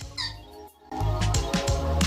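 A short, high squeaky call right at the start, then background electronic music with a heavy bass beat comes in about halfway.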